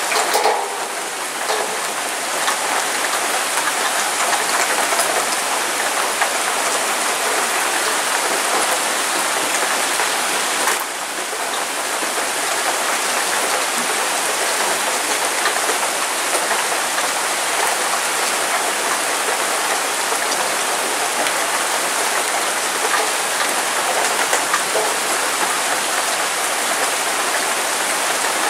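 Heavy downpour: torrential rain falling steadily, a dense, even hiss of rain on the ground.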